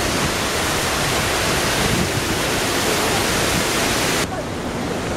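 Steady rushing noise of a large waterfall close by, dense and even across the whole range. It cuts off abruptly about four seconds in, leaving a quieter, duller background.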